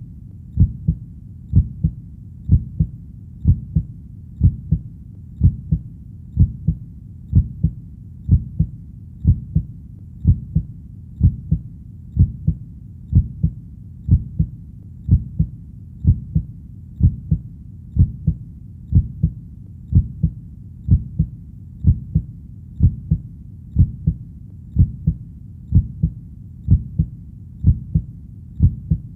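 Heartbeat: a steady, even lub-dub rhythm of paired, deep, muffled thumps repeating without change.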